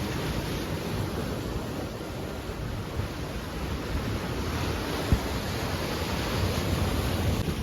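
Heavy sea surf breaking and washing up on the shore, with wind buffeting the microphone. A single sharp click comes a little over five seconds in.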